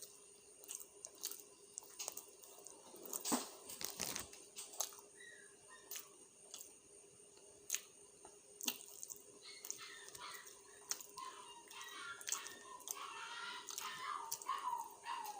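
Close-up chewing and wet mouth clicks of a man eating a hamburger: scattered sharp clicks, with a louder cluster about three seconds in. In the second half a faint wavering pitched sound rises in the background.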